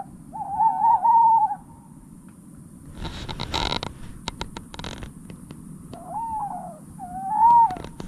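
An owl hooting: one long wavering hoot, then two shorter hoots near the end. In between comes a spell of rustling noise with sharp clicks.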